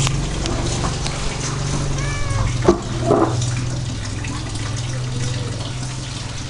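A domestic cat gives one short meow about two seconds in, over a steady low background rumble, with a sharp click shortly after.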